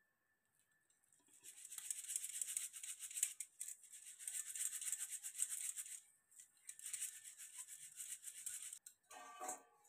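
Damp pounded pearl millet (bajra) being rubbed and shaken through a flour sieve over a steel plate: a scratchy hiss of grain on the mesh, with short pauses, as the fine chaff is sifted out. A brief pitched sound comes near the end.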